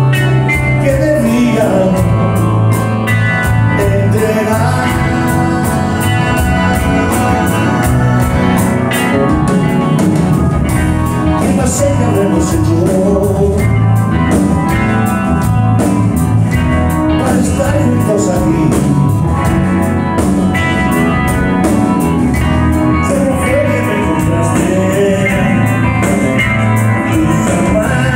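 Live rock band playing guitar, bass and drums, with singing, heard from the audience.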